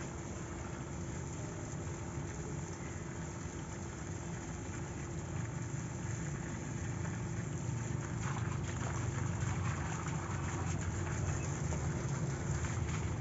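Water from a garden hose running and splashing onto plants and soil, over a steady low rumble and faint hum, getting slightly louder partway through.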